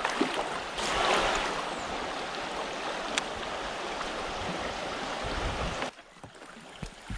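Steady rush of flowing river water. About six seconds in it drops to a quieter wash with a few faint knocks.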